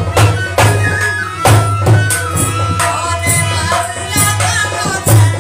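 Himachali nati folk music: a woman singing over a harmonium melody, with a hand-played two-headed barrel drum keeping a steady beat of about two strokes a second.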